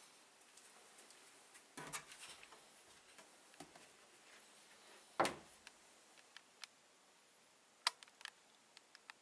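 Scattered light clicks and knocks from a clothes dryer, with a cluster of them about two seconds in and one louder knock about five seconds in.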